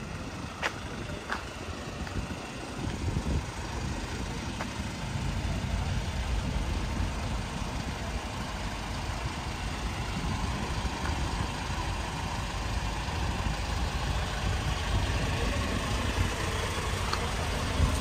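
Street ambience dominated by a steady low rumble, with a few faint clicks about a second in.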